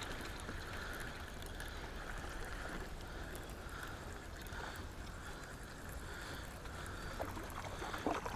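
Penn spinning reel being wound in steadily, a soft continuous whir, over a low rumble of wind and water, while retrieving a hooked fish that is likely a mackerel.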